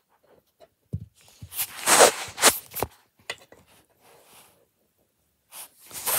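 Wooden toy train set pieces being handled: scattered light clicks and knocks, with a rustling scrape about two seconds in.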